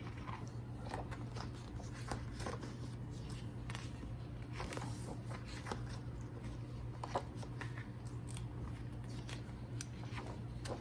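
Pages of a photobook being turned and handled: irregular paper rustles and small clicks, over a steady low hum.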